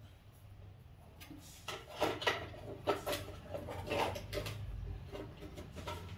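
Knocks and rattles of plastic pedestal-fan parts being picked up and handled, clustered between about two and five seconds in, over a low steady hum.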